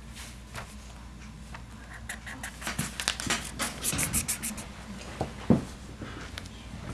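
Marker scribbling on paper in a quick run of short scratchy strokes for about two and a half seconds. Then come two knocks on the table, the second the loudest sound here.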